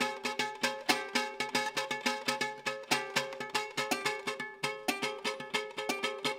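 Venezuelan cuatro strummed in a fast, driving rhythm of sharp percussive strokes, several a second, with the chords ringing between them: a batucada-style, drum-imitating pattern.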